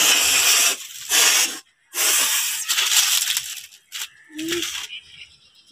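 A woman forcefully blowing her nose to clear mucus from a head cold: three loud, hissing blasts of air, the last the longest, then a softer snort about four seconds in.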